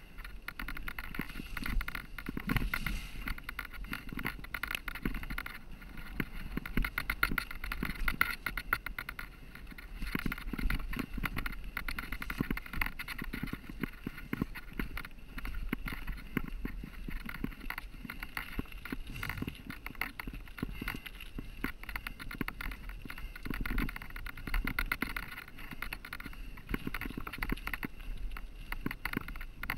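Mountain bike being ridden over rough, stony singletrack: tyres crunching on gravel and the bike rattling and clattering continuously over the bumps.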